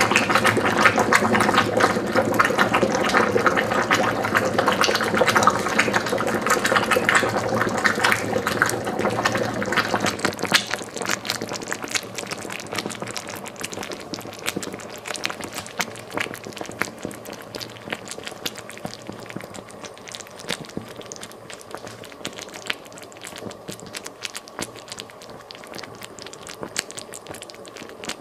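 Honey sizzling and crackling against a red-hot metal ball. The dense sizzle dies down after about ten seconds, leaving quieter scattered pops and crackles as the ball cools.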